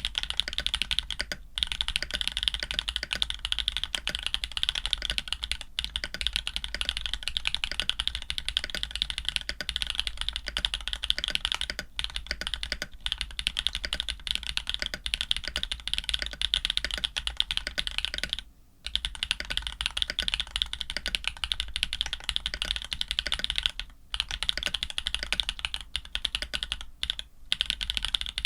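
Fast, continuous typing on an Orion 2.5 custom mechanical keyboard with lubed Jade Black switches, an FR4 plate and GMK keycaps, a steady run of keystrokes. The typing breaks off briefly about two-thirds of the way in and again twice near the end.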